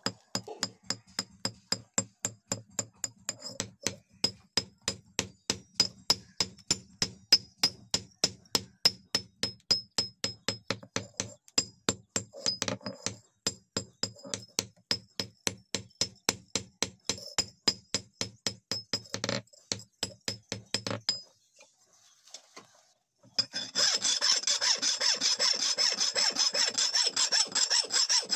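Hand hammer striking an axe blade on a steel anvil in a steady rhythm, about three blows a second, each with a ringing anvil tone, as the damaged edge is forged back into shape. The hammering stops about 21 seconds in, and after a short pause a long flat file rasps back and forth over the axe's edge.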